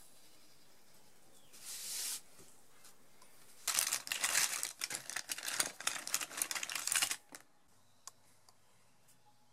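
A short rustle about two seconds in, then a hand rummaging through a fabric pencil case packed with markers, pencils and pens: plastic and wood clicking and rattling together for about three seconds.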